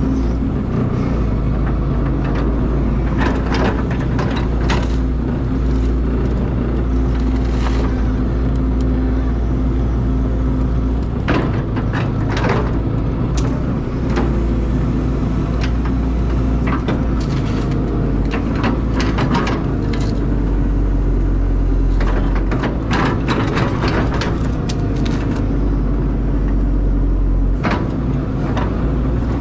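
Caterpillar excavator's diesel engine running steadily under load, with frequent sharp clanks and scrapes from the bucket working at a tree stump.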